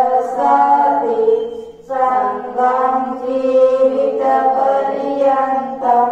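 Buddhist devotional chanting: a voice holding long steady notes in drawn-out phrases, with a short pause for breath about two seconds in.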